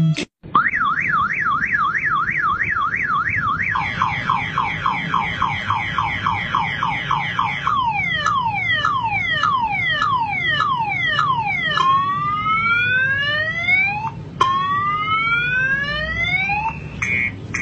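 Vehicle anti-theft alarm siren cycling through its tones: a fast up-and-down warble, then rapid falling chirps, then slower falling sweeps, then long rising whoops.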